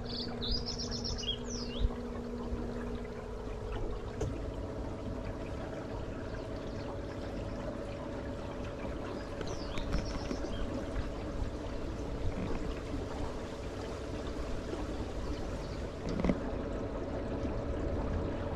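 A canal boat's motor running with a steady hum that shifts up in pitch about four seconds in, over the constant noise of water moving past the boat. A bird chirps briefly near the start and again about halfway through.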